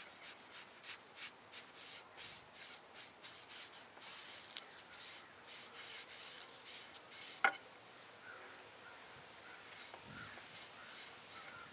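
Applicator pad rubbing gel stain along a wooden board: faint rubbing strokes, about three a second at first, then smoother, longer wipes. A single sharp click about seven and a half seconds in.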